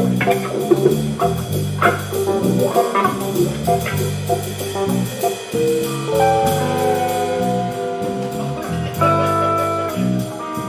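Live band playing a jazzy instrumental on electric bass, electric guitar, keyboard and drum kit. About halfway through, the sharp hits fall away and long held notes bend slowly downward over the bass.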